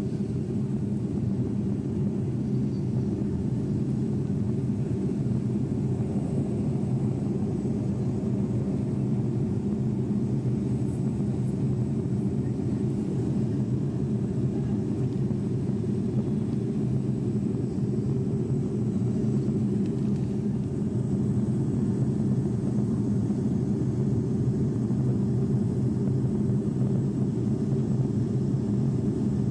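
Steady drone of a civilian airliner's engines and airflow heard from inside the cockpit, recorded on a mobile phone. It is an even, low hum with a few steady tones in it, growing slightly louder about two-thirds of the way in.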